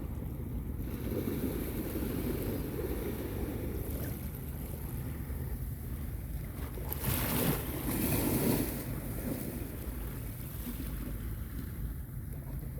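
Calm sea waves washing onto a beach, with wind rumbling on the microphone. One wave breaks and hisses louder about seven to nine seconds in.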